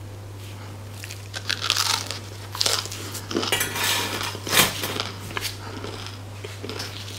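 Crisp crust of a freshly baked baguette crackling in several bursts as gloved hands break it apart, with a sharp knock about halfway through as a piece is set down on the perforated metal baguette tray. A steady low hum runs underneath.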